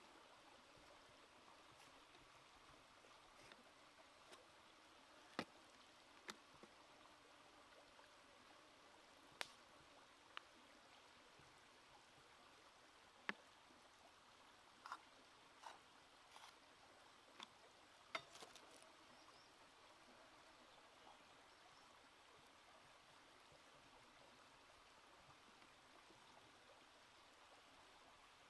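Near silence with a faint steady hiss, broken by about a dozen small sharp clicks and taps between about 5 and 18 seconds in: handling noises as raw squid is threaded onto thin bamboo skewers over a bowl.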